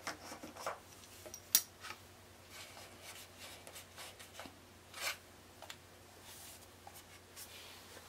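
Faint handling sounds from a hand working a garden hose on a water heater's drain valve: scattered small clicks and rubbing, with a sharper click about one and a half seconds in and another about five seconds in.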